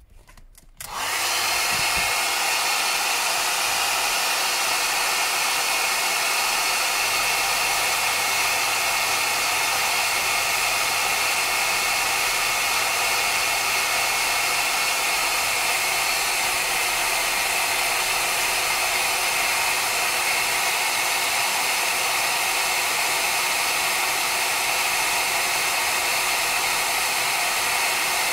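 Hand-held hair dryer switched on about a second in and blowing steadily, heating an opened smartphone to soften the glue holding its battery.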